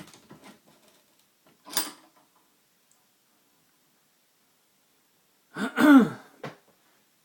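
A few faint clicks from handling the lock and picks, and a short noisy rush about two seconds in. Near the end comes the loudest sound, a man clearing his throat.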